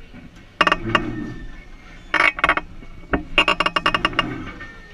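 Metallic rattling and clinking from a swinging pirate-ship ride as the boat swings through its arc. It comes in three bursts of rapid clatter, the longest a run of about ten clicks a second near the end.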